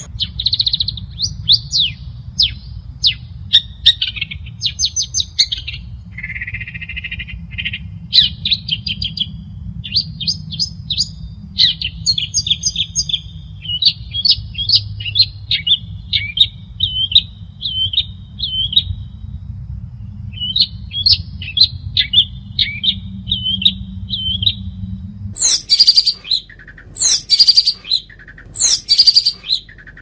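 Long-tailed shrike (cendet) singing a varied, chattering song of quick notes and short trills over a steady low hum. About 25 seconds in the hum drops out and four loud, harsh calls follow, about a second apart.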